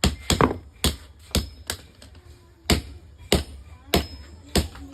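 Hand hammer striking metal, about ten sharp blows at an uneven pace, some leaving a brief metallic ring.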